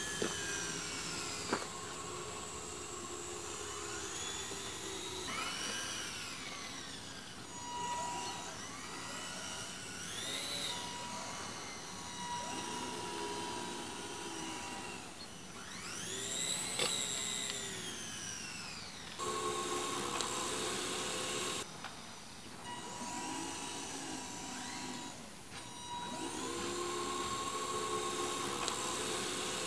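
High-pitched, jet-like engine whine that sweeps up and falls back in pitch again and again, as if passing close by, over a steady tone. The sound changes abruptly a few times, about two-thirds of the way in and near the end.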